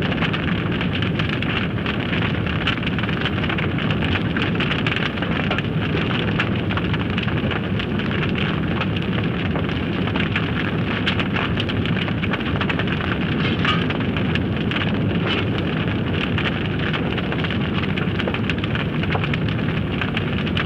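Forest fire burning: a steady rushing noise dense with sharp crackles and pops throughout.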